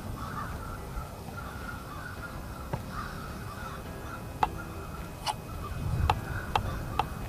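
Crows cawing in short, repeated calls over low outdoor rumble, with several sharp clicks in the second half.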